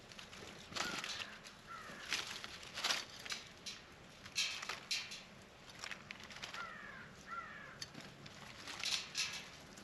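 Birds feeding at a plate of peanuts: scattered sharp clicks and knocks as the peanuts are picked at and moved, with short bird calls now and then, including pairs of quick chirps about a second in and again around seven seconds in.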